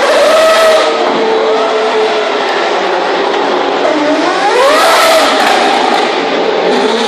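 Open-wheel single-seater race cars passing one after another, their engines running at high revs. About four seconds in, one car's engine note climbs in pitch as it accelerates past.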